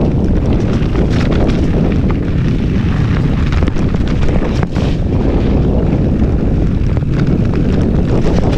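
Wind rushing over the microphone of a mountain bike rider's camera at speed: a loud, steady rush, with many quick clicks and rattles from the bike on rough trail.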